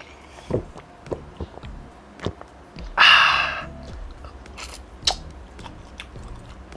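Close-miked eating sounds: grilled chicken inasal bitten and chewed by hand, with scattered wet mouth clicks and one loud crackly bite-and-tear about three seconds in.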